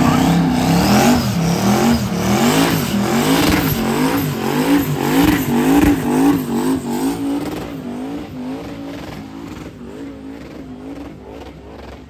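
Twin-turbo LS V8 in an Infiniti sedan revving hard through a burnout, its engine note rising and falling about twice a second as the throttle is worked with the rear tyres spinning. The sound fades away over the last few seconds as the car pulls off.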